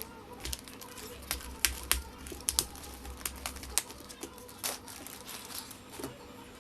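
Irregular small clicks, taps and light crinkling of small items and packaging being handled during an unboxing, over a low steady hum.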